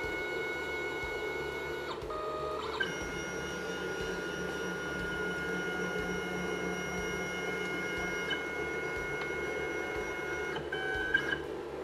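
Stepper motors of a desktop CNC router driving the axes through a homing cycle. They give a steady whine of several high tones that changes pitch about two seconds in, again just under three seconds in, and once more near the end as the axes start and stop.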